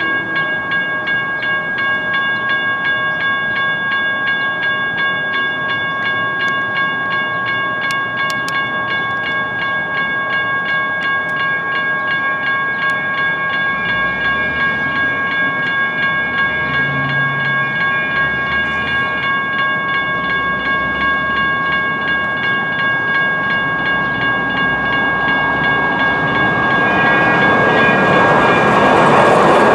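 Railroad crossing signals' General Signals Type 1 electronic bells ringing continuously. Near the end, the noise of an approaching Siemens-Duewag U2A light rail train rises beneath the bells.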